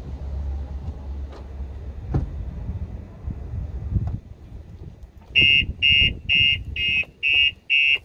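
Starline van alarm siren set off by the driver's door being opened while armed, sounding a loud high pulsing beep a little over twice a second, starting about five seconds in. Before it, a couple of knocks as the door is opened.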